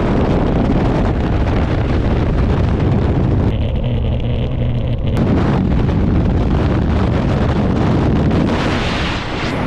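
Loud, continuous wind rushing over the camera microphone, typical of a skydiving jump. It drops off for about a second and a half just past the middle, then comes back.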